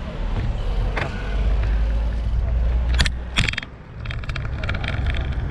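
Wind buffeting the microphone while riding a folding bicycle, a steady low rumble, with sharp clicks and knocks about a second in and around three seconds in. Near the end comes a quick run of light ticks.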